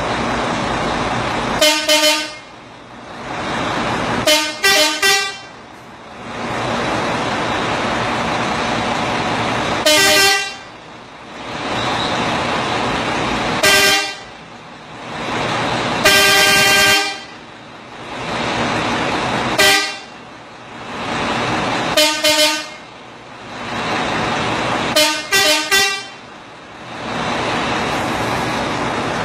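Truck air horns played in a rhythm by an electronic horn module: short pitched blasts, some single and some in quick groups of three, about every two to four seconds, with one longer blast past the middle. Between the blasts a loud steady rushing noise.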